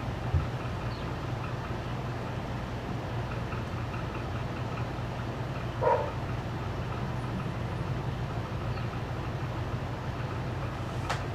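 Steady low mechanical hum, with one brief louder sound about six seconds in.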